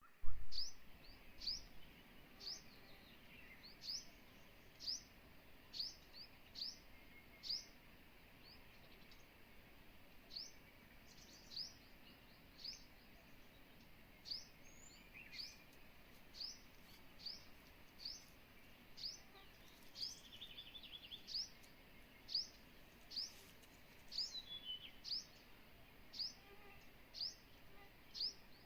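A bird repeats a short, high chirp that drops in pitch, about once a second, with other birds calling more softly behind it. A brief low thump comes right at the start.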